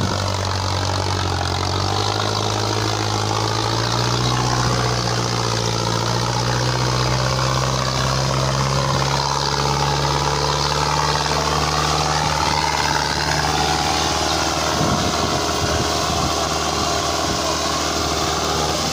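Mahindra Arjun Novo 605 DI tractor's four-cylinder diesel engine running hard under heavy load, hauling a fully loaded trolley through deep sand. The engine note rises slowly in pitch over the first dozen seconds, then holds steady.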